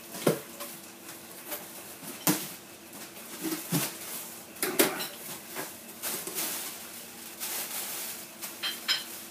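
A cardboard shipping box and its packing being handled and opened: several sharp knocks and clicks, with stretches of rustling and scraping between them.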